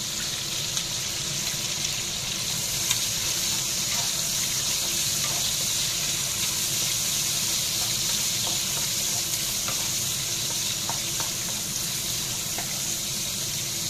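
Sliced onions sizzling steadily in hot oil in a wok as they are stirred with a wooden spatula, with a few light ticks of the spatula against the pan.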